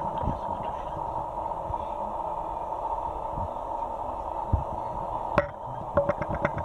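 Steady background hiss, with a few light clicks and taps as a smartphone and its cardboard box are handled; the sharpest click comes about five seconds in.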